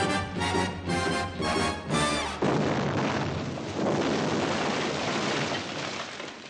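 Brassy film score playing repeated punchy chords, about two or three a second, cut off about two seconds in by a loud explosion sound effect: a sudden blast, then a long noisy wash of fire and falling debris that swells again a second later and dies away near the end.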